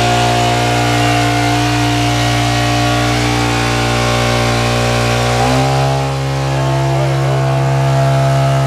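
Honda engine-driven water pump running steadily. About five and a half seconds in, the engine speed steps up a little and holds at the higher pitch.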